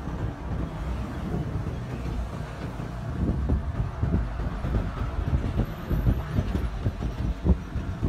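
Low, uneven rumble of a moving motorbike, with wind buffeting the microphone.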